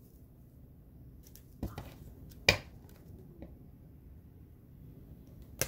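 A deck of oracle cards being handled: a few short sharp snaps and taps, the loudest about two and a half seconds in, over a low room hum.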